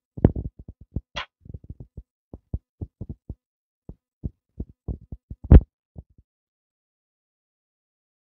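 A quick, irregular run of short, low thumps and knocks, the loudest about five and a half seconds in, with a brief hiss about a second in; the thumps stop about six seconds in.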